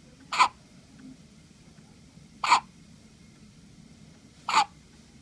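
A girl hiccuping three times, sharp short hics about two seconds apart.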